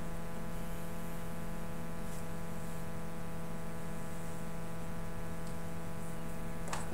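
Steady electrical hum with even hiss, with a few faint clicks about two seconds in, past the middle and near the end; no music is heard.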